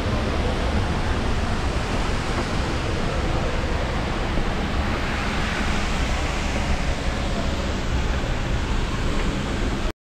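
Upper Düden waterfall rushing: a steady, loud wash of falling water, broken off abruptly just before the end.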